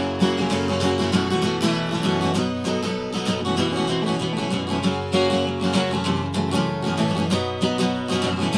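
Solo acoustic guitar playing an instrumental passage between sung verses, with quick, rhythmic strumming.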